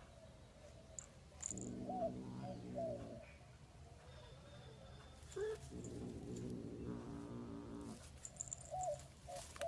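Animal calls: two long, low, drawn-out cries, with short high chirps around them.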